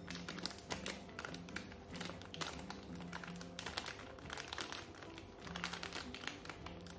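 Background music with a steady run of crinkling and crackling from a packet being handled as powder is poured from it into a glass jar.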